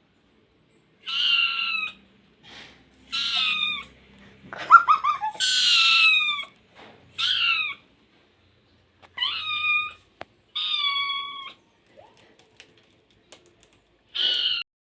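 A cat meowing repeatedly: about eight high-pitched meows, each falling in pitch, with a quick run of short stuttering calls near the middle.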